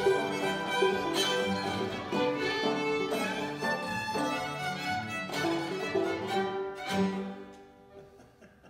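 Old-time string band of two fiddles, banjo and acoustic guitar playing a tune, the fiddles leading; it ends on a final chord about seven seconds in, which rings and fades away.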